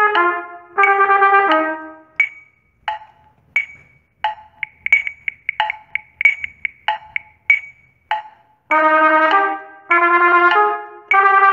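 Trumpet playing a triple-tonguing exercise, with a phrase ending about two seconds in. Then a metronome ticks alone for about six seconds at 100 beats per minute, first on the beats and then in faster triplet subdivisions. Near the end the trumpet comes back in with rapid tongued triplet figures.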